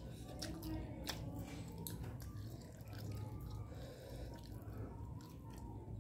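Close-up wet chewing of steamed vegetable momos (dumplings), with frequent short mouth clicks and lip smacks, thickest in the first couple of seconds.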